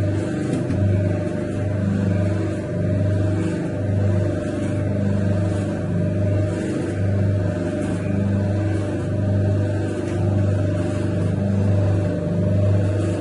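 Motor-driven dough mixer machine running steadily, its low hum swelling and easing about once a second as the mixing paddle turns.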